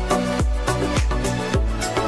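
Background music with a steady dance beat and a deep kick drum about twice a second.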